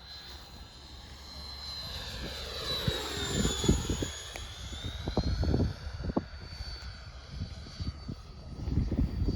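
Radio-controlled model L-39 jet flying past with a high whine that drops in pitch as it passes, about three seconds in. Wind gusts buffet the microphone throughout.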